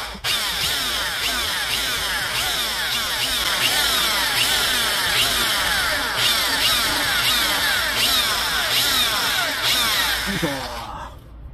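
Rotary tool (リューター) with a flatter-faced bit grinding the aluminium intake port of a Suzuki K6A cylinder head, smoothing the port walls after rougher cutting. A loud, steady high-pitched grind whose pitch keeps dipping, winding down and stopping near the end.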